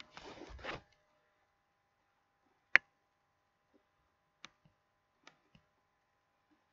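A few sparse computer keystroke clicks while typing: one sharp click about three seconds in, then three fainter ones, over a faint steady electrical hum.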